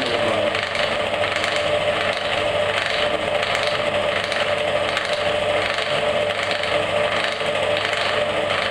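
Lubricant wear-test machine running under load: its electric motor turns a metal ring that rubs against a test block lubricated with oil and Metabond, making a steady rubbing, scraping noise with a steady tone over it.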